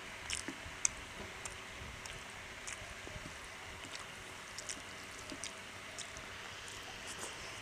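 Wet eating sounds: chewing and lip smacks of someone eating rice with chicken curry, heard as short irregular clicks over a steady hiss.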